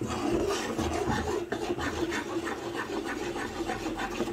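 Metal spoon scraping round the bottom of a black kadai as yogurt curry is stirred without pause, in a steady run of short repeated strokes. The constant stirring keeps the heated yogurt from curdling.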